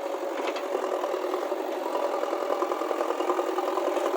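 A motor running steadily: an even, mid-pitched mechanical hum.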